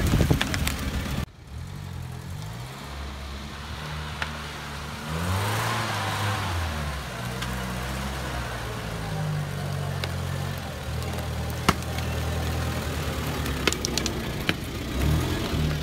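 UAZ-469 off-roader's engine running at low speed, revving up and dropping back once about a third of the way through, then running steadily. Wind on the microphone at the very start, and a few sharp clicks.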